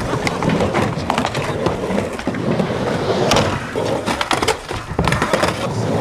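Skateboards rolling and riding on a ramp, with repeated sharp clacks and knocks of boards and trucks hitting the surface.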